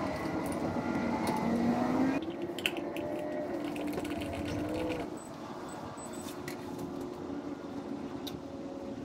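A small motor running with a steady hum that shifts slightly in pitch, with scattered clicks; the sound changes abruptly about two seconds in and again about five seconds in.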